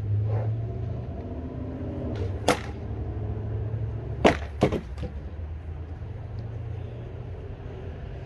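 Sparring weapon blows landing on wooden shields: one sharp crack about two and a half seconds in, then three quick cracks in a row about four to five seconds in, over a low steady rumble.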